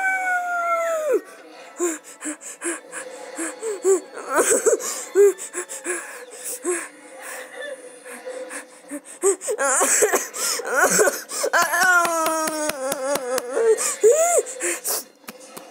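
Wordless voice sounds: squeals, gasps and laughing-like bursts, with many sharp clicks between them. A falling squeal comes at the start, and a quickly wavering, laugh-like passage comes a little after the middle.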